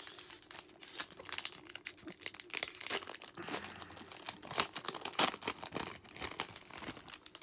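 The foil wrapper of a Topps baseball card pack being torn open and peeled apart by hand: irregular crinkling and crackling of the foil, with sharper tearing crackles among it.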